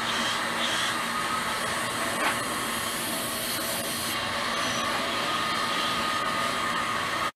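Steady rushing noise like moving air, with a single sharp click about two seconds in.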